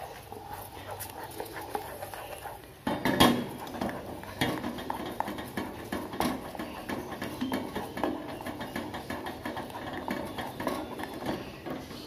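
A wooden spatula stirs and scrapes thick, simmering ginger and palm-sugar syrup in an enamel saucepan, stirred until the sugar dissolves. The stirring is soft at first, then from about three seconds in it becomes a run of knocks and scrapes against the pan.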